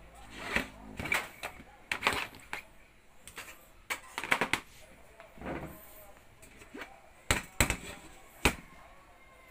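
Irregular knocks and clatter of a metal-bodied rice cooker being handled and tipped over onto its top to get at the base, about a dozen sharp knocks with the loudest near the end.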